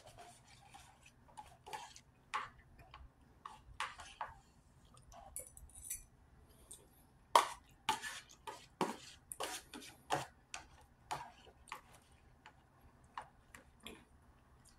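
A metal utensil tapping and scraping in a plastic takeout tray while eating: light, irregular clicks every half second or so, the sharpest about seven seconds in.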